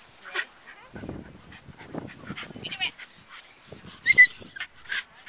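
Dog whining and yipping with several short, high-pitched cries, the loudest a little after four seconds in.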